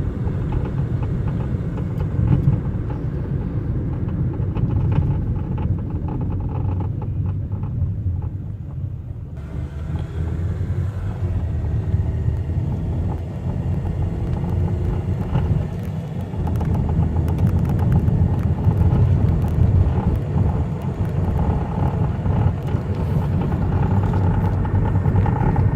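2005 Chevrolet Cobalt driving, a steady low road-and-engine rumble. The knocking from the driver's-side front that the owner is chasing is very faint here as the car gains speed; he suspects something tied to the wheel, steering or drivetrain.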